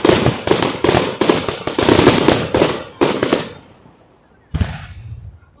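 Aerial fireworks exploding in a rapid, dense volley of bangs and crackles that dies away about three and a half seconds in. About a second later comes one more boom with a low rumble.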